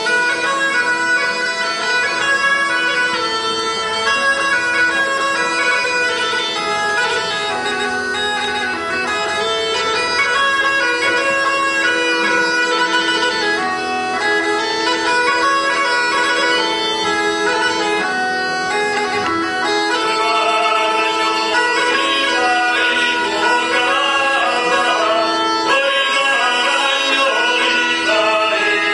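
Croatian gajde (bagpipe) playing a lively folk tune over a steady drone, with a shifting melody above it. The sound grows brighter about twenty seconds in.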